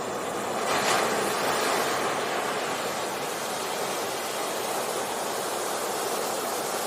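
Ocean surf on a beach: a continuous rush of waves breaking and washing in, swelling about a second in and then holding steady.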